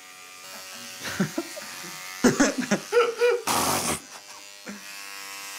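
Corded electric hair clippers buzzing steadily as they shave a man's long hair off his head. A short, loud rush of noise cuts across the buzz about three and a half seconds in.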